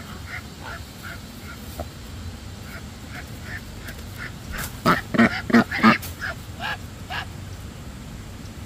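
Domestic ducks quacking in a string of short calls, rising to a louder run of quacks about five to six seconds in, then thinning out to a few calls.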